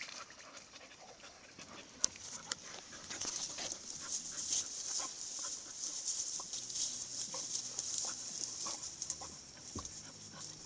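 Bull terriers panting as they move and nose through wet grass and reeds, with two sharp clicks about two seconds in.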